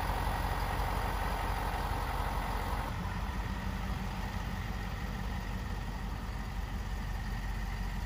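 Ford Super Duty dual-rear-wheel pickup truck's engine running steadily at low speed as the truck drives off.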